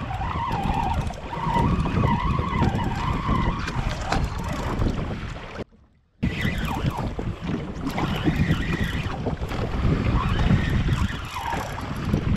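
Wind buffeting the microphone over choppy sea water around a fishing jetski. The sound cuts out for about half a second near the middle.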